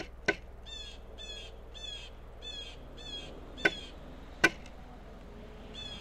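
Pileated woodpecker pecking at a suet block on a wooden platform feeder: three sharp knocks, one just after the start and two close together about three and a half seconds in. Between them a smaller bird calls six times in quick, evenly spaced, high descending phrases.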